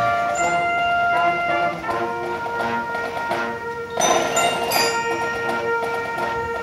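Marching band playing: trumpets and other brass holding sustained notes over rhythmic percussion, with a loud accent about four seconds in.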